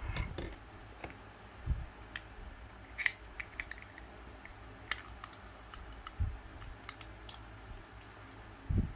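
Light, scattered clicks and taps of small plastic model-kit parts and hobby tools being handled on a work desk, with three dull thumps.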